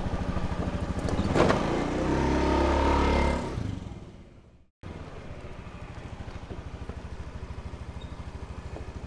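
Honda motor scooter's small engine idling, a short clack, then the engine revving up as the scooter pulls away and fading out. After an abrupt cut, a scooter engine idles steadily at a lower level.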